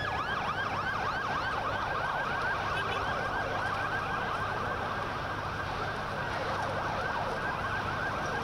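Ambulance siren in a fast yelp: quick up-and-down sweeps in pitch, several a second, sounding without a break over the background noise of the street.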